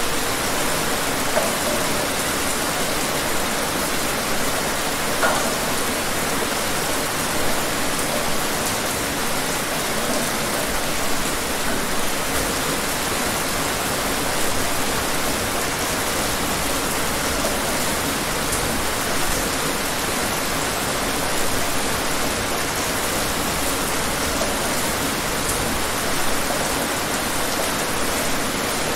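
Steady rain falling: an even hiss with occasional slightly louder drops.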